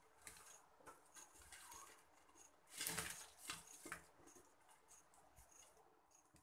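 Near silence, broken about three seconds in by a few faint soft plops and taps: fried gram-flour pakodis sliding off a plate into warm yogurt kadhi in a pan.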